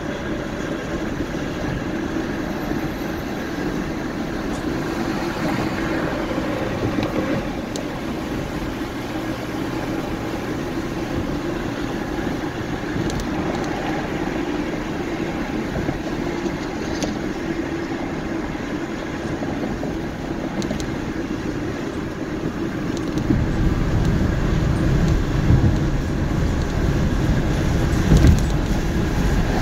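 A car driving, with steady road and engine noise. About three-quarters of the way through, a heavier low rumble sets in, with a couple of thumps.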